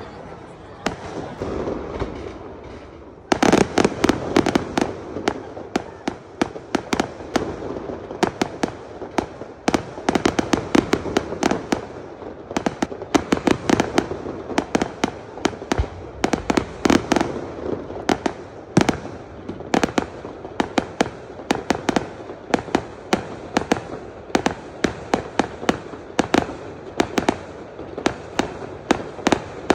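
Fireworks display: aerial shells bursting and crackling. After a quieter opening few seconds, a dense barrage of rapid bangs and crackles starts about three seconds in and keeps going.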